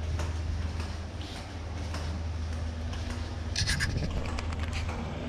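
Rubbing and scratching handling noise on a handheld camera's microphone during walking, over a steady low hum, with a brief brighter rustle about two-thirds of the way in.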